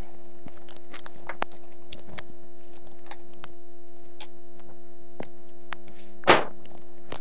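Steady electrical hum with faint scattered clicks, and one short breathy burst about six seconds in.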